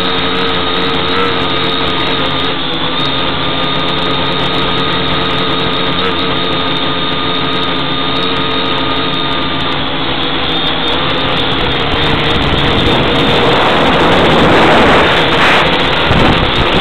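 Quadcopter's electric motors and propellers humming steadily, heard up close through the onboard camera's microphone. The sound grows louder and rougher in the last few seconds as the craft manoeuvres.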